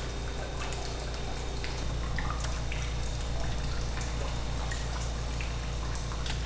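Water dripping and trickling on a wet fish-cleaning bench, with scattered small wet taps and clicks as eel fillets are handled, over a steady low hum.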